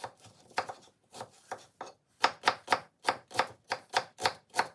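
Kitchen knife chopping an onion on a wooden chopping board: a few uneven cuts at first, then about two seconds in a steady run of louder strokes at about four a second as the onion is diced.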